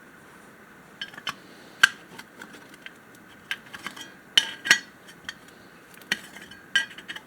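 Metal parts clinking and tapping as a new piece is fitted onto a Homelite XL-12 chainsaw's muffler: a string of irregular sharp metallic clicks with a short ring, the loudest about two seconds and four and a half seconds in.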